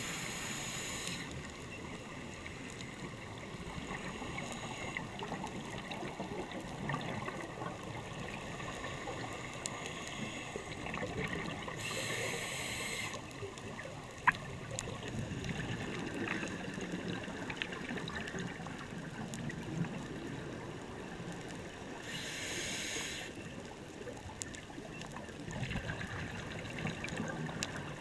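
Underwater sound of a scuba diver breathing. Three bursts of exhaust bubbles from the regulator, each about a second long and some ten seconds apart, rise over a steady underwater hiss. One sharp click comes about halfway through.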